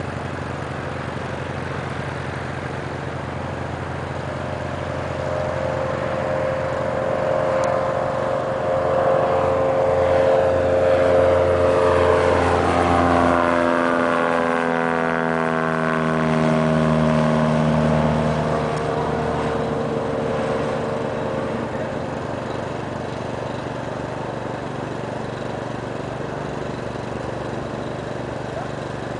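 Socata Rallye 180's four-cylinder Lycoming engine and propeller at full climb power. It grows louder as the plane approaches, passes close by with a falling pitch about halfway through, then drops back to a steadier drone as it climbs away.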